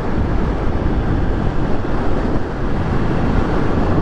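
Steady wind rush over the microphone with the hum of a Honda XRE300's single-cylinder engine underneath, riding at a constant highway speed.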